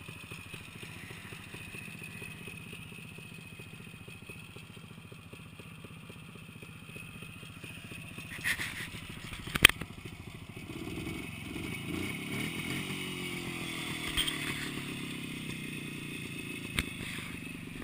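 Motorcycle engine running, with two sharp knocks about nine and ten seconds in. From about eleven seconds in, a louder engine revs with its pitch shifting up and down.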